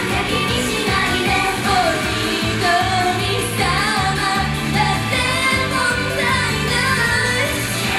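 Female J-pop idol group singing live into handheld microphones over loud, steady pop backing music.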